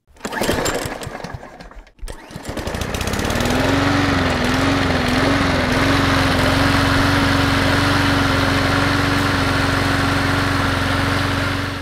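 Kohler 7000 series V-twin mower engine running. After a short cut about two seconds in, it comes up to speed, its pitch wavers for a moment and then holds steady, and the sound stops abruptly.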